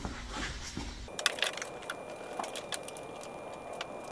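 Scattered light metallic clicks and clinks of a steel clutch Z-bar (clutch equalizer bar) being worked into its pivot mounts by hand.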